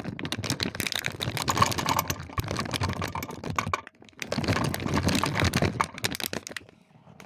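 Hard 18mm boilies being poured into the hopper of an NGT boilie grinder: a dense clatter of many small hard clicks. There are two pours, with a short pause a little over halfway through.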